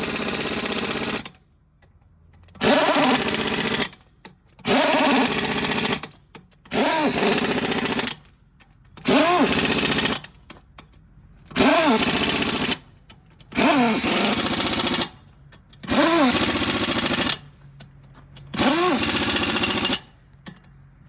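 A 3/4-inch impact wrench on its low power setting running lug bolts in one after another: about nine short bursts roughly two seconds apart, each rising in pitch and then dropping as the bolt snugs up.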